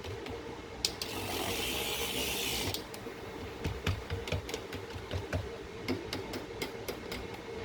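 A short hiss about a second in, then a run of light clicks and knocks from soapmaking containers and utensils being handled.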